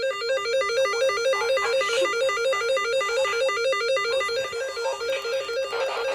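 Music: a fast, evenly repeating figure of quick plucked-sounding notes at a steady level, with no speech.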